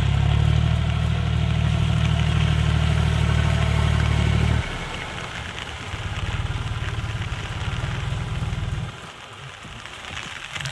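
Tractor diesel engine running steadily, loud at first; the sound drops abruptly about four and a half seconds in, carries on more quietly, then falls away again near the end.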